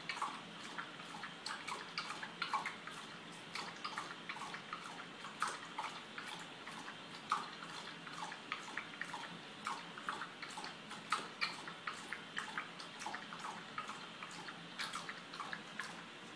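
A pit bull lapping water from a stainless steel bowl: a steady run of short, wet laps and splashes, about three a second.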